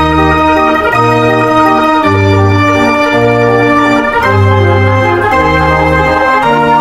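Large mechanical dance organ with ranks of pipes playing a tune, its bass notes changing about once a second under sustained chords.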